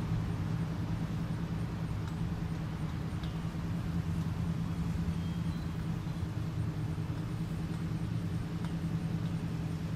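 Steady low engine rumble, like a motor vehicle idling, with no change in pitch.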